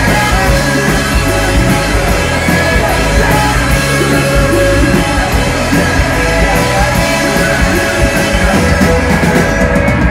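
Live punk-rock band playing loud, with the full band going and sung, shouted vocals.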